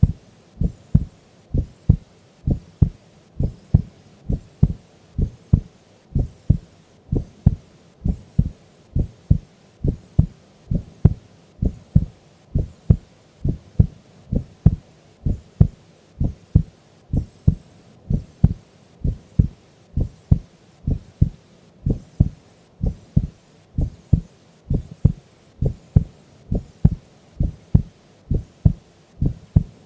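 A sleeping woman's heartbeat, picked up close: a steady run of paired low thumps (lub-dub), a little over one beat a second.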